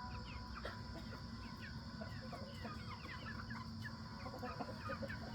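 Backyard chicken flock calling: a busy stream of short, high, downward-sliding cheeps from young pullets that still have their baby voices, mixed with clucking from the hens.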